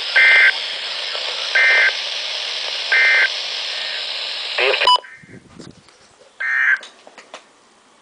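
Emergency Alert System end-of-message data bursts from a Midland NOAA weather radio: three short, equal, raspy digital bursts about a second and a half apart over static hiss. The hiss cuts off about five seconds in, and one more short burst comes near the end.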